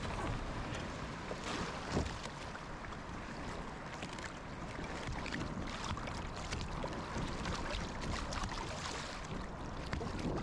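Kayak paddle strokes splashing and water sloshing against a fishing kayak's hull, under a steady rush of wind and chop. There is a sharp knock about two seconds in.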